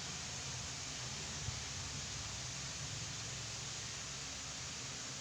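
Steady background hiss with a faint low hum, room tone, with a single soft tap about a second and a half in.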